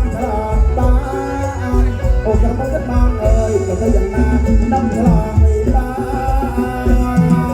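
Live traditional folk music: a wavering sung or played melody over a steady, busy hand-drum beat.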